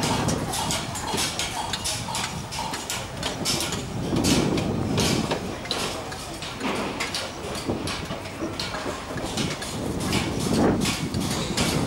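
Construction-site din: a rapid, irregular run of sharp metallic clicks and knocks over a low steady rumble of machinery.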